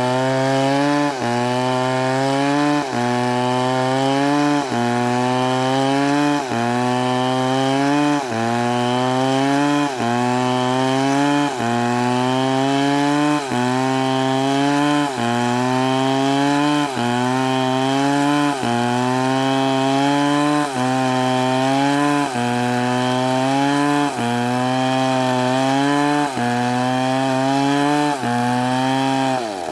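STIHL chainsaw cutting through a big log under load, its engine note dipping and recovering in a steady rhythm about every second and three-quarters. At the very end the engine note falls away toward idle.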